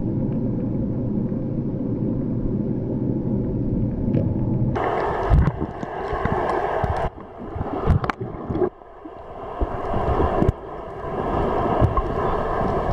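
Muffled underwater sound picked up through a camera housing: a steady low hum with rushing water. About five seconds in it turns rougher and uneven, broken by several knocks and bumps.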